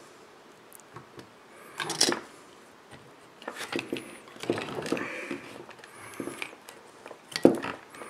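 Scattered light clicks, taps and scrapes of small-parts handling as a soldering iron works on a small DC motor's wire terminal to desolder a wire, with a sharp click about two seconds in and the loudest one near the end.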